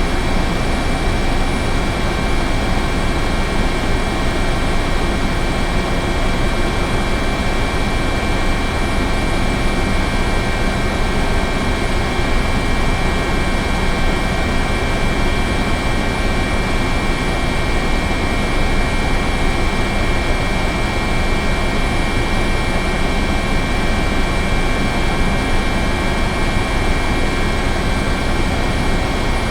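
Helicopter running steadily: dense, unchanging engine and rotor noise with a constant high turbine whine on top.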